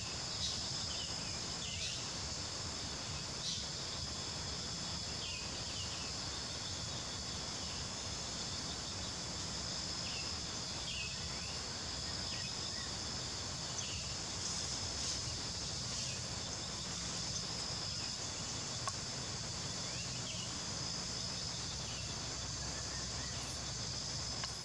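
Steady high-pitched drone of insects, crickets or cicadas, with a few short faint chirps scattered through it.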